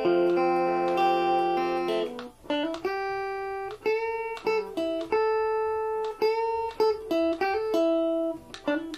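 Stratocaster-style electric guitar played with a clean tone: a ringing chord held for about two seconds, then a single-note melody with slides between some of the notes.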